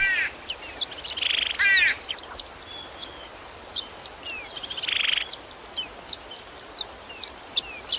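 Many short high chirps and quick downward whistles, with two buzzy trills, over a steady high insect-like drone: a birdsong-and-insect nature soundscape.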